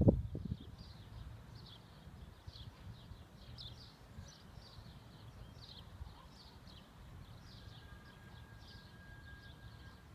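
Small birds chirping in a steady run of short, high, falling notes, two or three a second, over a low rumble. There is a single thump right at the start.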